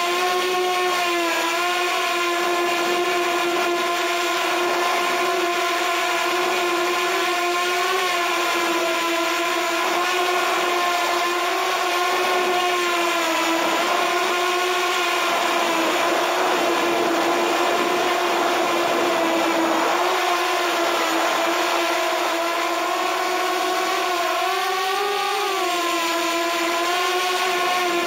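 Walkera F210 3D racing quadcopter's brushless motors and propellers whining steadily, heard close from a camera mounted on the frame. The pitch wavers slightly with throttle and rises briefly near the end.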